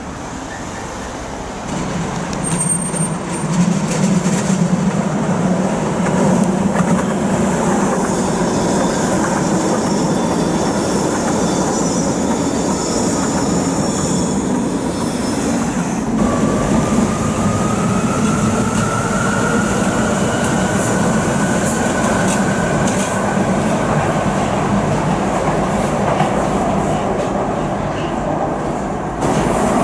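Vienna U-Bahn metro train running on the tracks, a steady rumble of wheels on rail with a thin whine that rises slowly in pitch from about halfway through.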